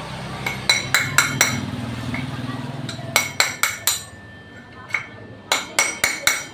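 Hammer striking metal in quick groups of sharp, ringing clinks, from work on a scooter's CVT pulley bearing. A low hum runs under the first three seconds.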